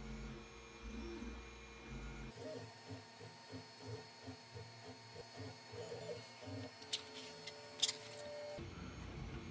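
3D printer running a print, its stepper motors whirring in short tones that change pitch every fraction of a second. Two sharp clicks come about seven and eight seconds in.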